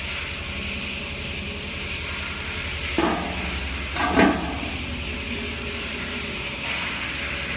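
Steady hum and hiss of workshop machinery running, with two short, louder sounds about three and four seconds in.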